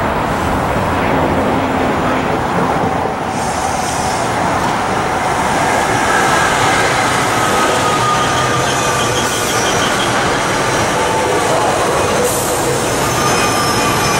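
Passenger train cars rolling past with a steady rumble, and a thin, high wheel squeal that comes in a few seconds in.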